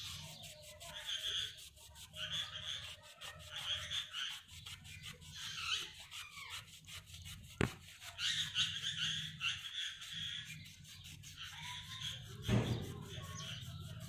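Hand and cloth scrubbing the rusty chrome rim of a spoked motorcycle wheel, in rubbing strokes about once a second. A sharp click comes a little past halfway, and a knock near the end.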